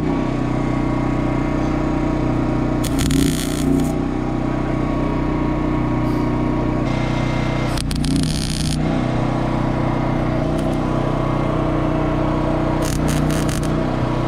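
Wire-feed (MIG-type) welding arc crackling in three short bursts, tack welds on a steel pipe fence panel about 3, 8 and 13 seconds in, each lasting about a second. Under them runs the steady drone of an engine.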